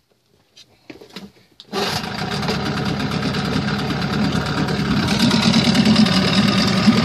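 A 1986 Evinrude 6 hp outboard's two-cylinder two-stroke engine, pull-started, catches suddenly just under two seconds in after a few faint clicks. It then runs steadily, getting a little louder over the next few seconds.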